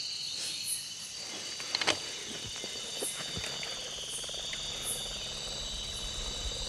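Steady woodland insect chirping, with a couple of sharp clicks about two seconds in. A low rumble swells near the end.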